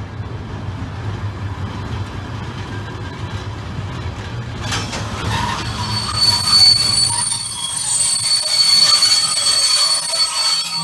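Train passing through a station: a low hum for the first few seconds, then from about halfway the wheels squeal loudly with several high, steady tones over the running noise.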